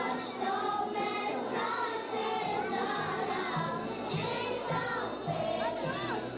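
A group of young voices singing a gospel praise song with instrumental backing. Steady low bass notes come in about two and a half seconds in.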